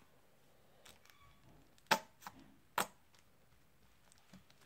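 Two sharp taps a little under a second apart, with a few fainter ticks, as a small plastic bottle is shaken and tipped out by hand.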